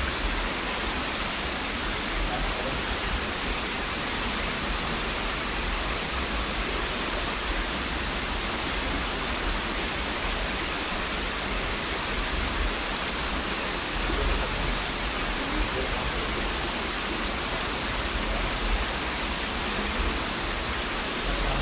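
Steady rush of a waterfall: a dense, even hiss with a low rumble underneath.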